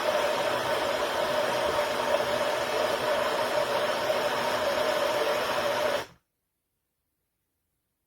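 Small battery-powered portable blender motor running steadily with a whirring hum, cutting off abruptly about six seconds in.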